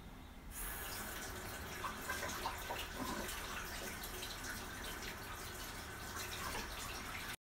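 Water tap turned on about half a second in and running into a sink, splashing as hands are washed under it; the sound cuts off suddenly near the end.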